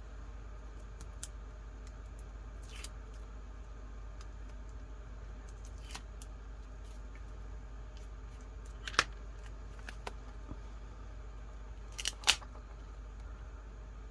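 Paper-craft supplies handled on a desk: a few sharp clicks and taps, the loudest about nine seconds in and two close together a few seconds later, over a steady low hum.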